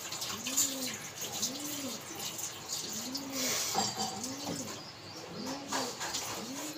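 A pigeon cooing over and over, a low rising-and-falling coo about once a second. Under it are water sounds and light clicks and clatter from potatoes being rinsed in a sink.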